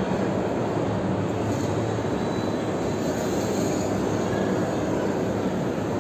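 Steady, dense rushing background noise with no distinct events: the ambience of a large indoor hall.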